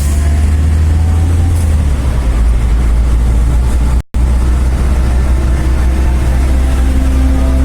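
Road noise inside a moving van: a steady low rumble of engine and tyres. It is broken by a split-second dropout about four seconds in.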